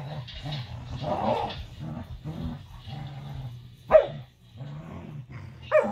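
Two dogs play-fighting: low, pulsing growls through most of it, broken by two sharp barks, one about four seconds in and one near the end.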